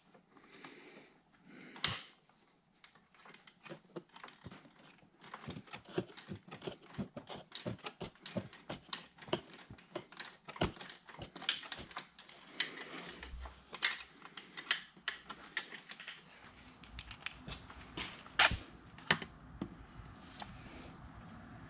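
Ratchet wrench clicking in quick, irregular runs as a 10 mm bolt is slowly worked loose, mixed with small knocks of the tool against metal and plastic.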